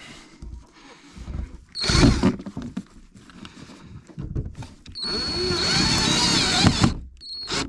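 Electric drill driving screws to mount a nest box on a wall, run in bursts: a short one about two seconds in, a longer run of nearly two seconds from about five seconds in, and a brief one near the end, each with a steady high motor whine.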